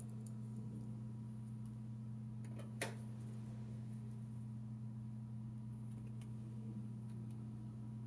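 Faint ticks of a hex key and a small screw being worked into a metal computer case, with one sharper click about three seconds in, over a steady low electrical hum.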